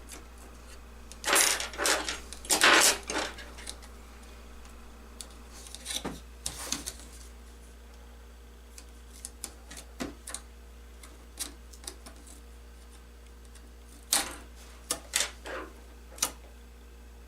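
A pry tool clicking and scraping against a tablet's daughter board as it is levered off the adhesive beneath it. The clicks and scrapes come irregularly, loudest about a second or two in and again in a quick run near the end, over a faint steady hum.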